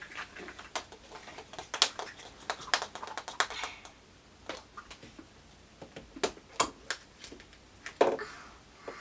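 Irregular clicks and taps of small hard plastic toys and surprise-egg capsules being handled and knocked together, with a quieter stretch midway.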